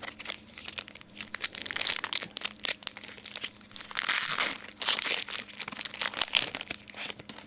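Foil wrapper of a 2011 Panini Prestige football card pack crinkling as it is torn open and handled: a dense run of crackles, with a longer, louder stretch about four seconds in.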